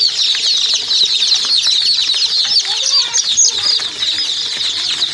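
Dozens of day-old Sonali chicks peeping all at once, a dense, unbroken chorus of short, high-pitched peeps.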